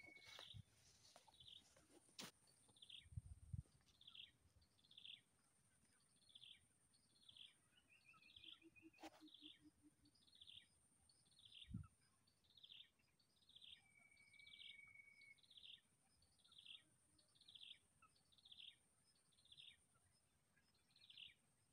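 A bird chirping over and over, about three short falling chirps every two seconds, faint and regular, over a steady high-pitched hum. A short low buzzing trill comes about nine seconds in.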